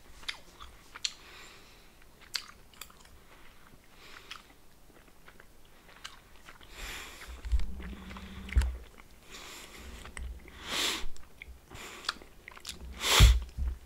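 A person chewing a soft gummy candy pizza slice close to the microphone: wet mouth clicks and smacks, with a few louder bursts of chewing and one loudest smack near the end.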